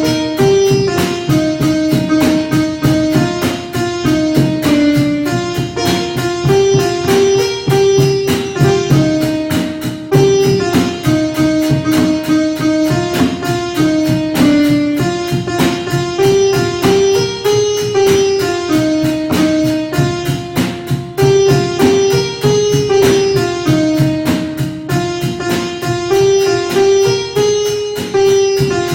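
Instrumental music: a short melody repeating about every eight seconds over a fast, steady stream of plucked or struck notes.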